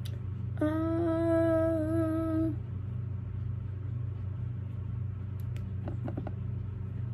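A woman humming one held note for about two seconds, starting a little under a second in, over a steady low hum in the room.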